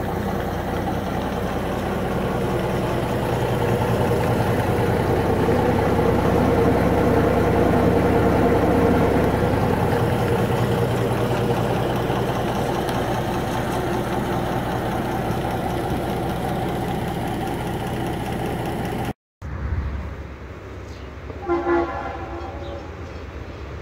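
Diesel engine of a small rail vehicle running steadily. After a cut, a train horn sounds briefly.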